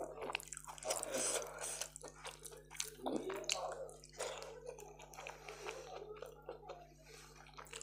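Close-miked eating by hand: fingers squishing and mixing rice on a glass plate, then wet chewing of a mouthful. The chewing comes with many small irregular clicks and smacks.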